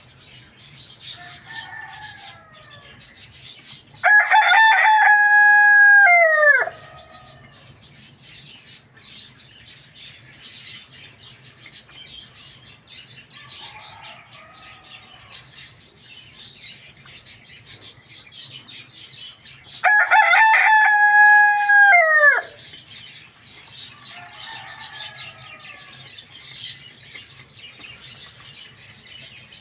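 Rooster crowing twice, each crow a loud held call of about two and a half seconds that falls away at the end. Between the crows come softer clucking and many short, high chirps.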